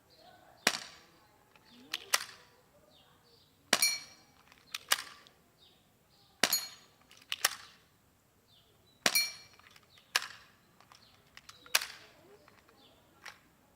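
Glock pistol being fired, about ten single shots at irregular intervals of one to two seconds, two of them in quick succession about two seconds in. A few shots carry a brief metallic ring.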